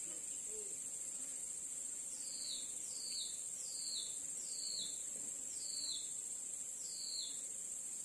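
Steady, high-pitched drone of insects, with a bird repeating a short falling call about six times from about two seconds in.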